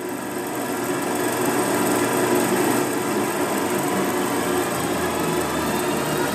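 Film projector running: a steady motor whir with a fast mechanical rattle of film feeding through it.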